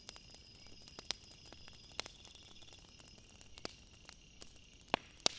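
Firewood burning in a fire pit, crackling with sharp, irregular pops about once a second, the two loudest near the end, over a steady high chirping of insects.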